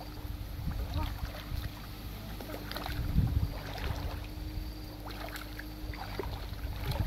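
Muddy ditch water sloshing and splashing around the legs of someone wading thigh-deep and groping in it by hand, in uneven surges with small splashes and drips, the biggest surge about three seconds in.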